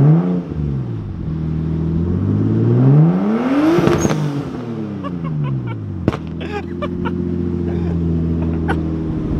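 Nissan Skyline R34 with a Tomei Expreme titanium exhaust, revved once in a slow, smooth climb that peaks about four seconds in and drops back, then settling to a steady idle. There is a single sharp click at about six seconds.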